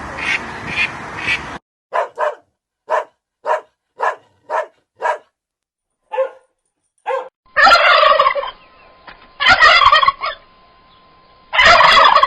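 Turkey gobbling three times, each gobble about a second long, after a run of short clipped calls about two a second. Another animal's repeated calls over background noise cut off abruptly at the start.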